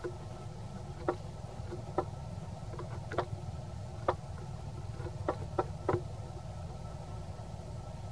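Outdoor tree-canopy ambience: a steady low rumble with a faint, even insect drone, broken by about eight sharp clicks scattered through the first six seconds and none after.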